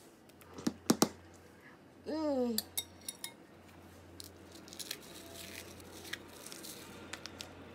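Light clinks and knocks of kitchen utensils against dishes and containers, with two sharp clicks about a second in. A short sliding pitched sound comes around two seconds in, followed by scattered small ticks.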